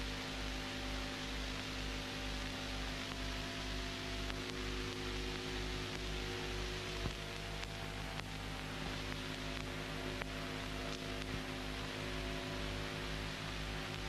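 Steady electrical mains hum with its overtones, over a hiss of recording noise. A faint click comes about seven seconds in.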